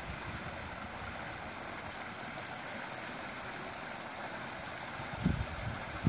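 Steady rush of a mountain stream running over rocks, with a brief low thump near the end.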